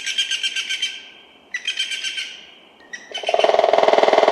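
Bird sounds: two short bursts of fast trilled notes. About three seconds in, a loud, very rapid rattle starts.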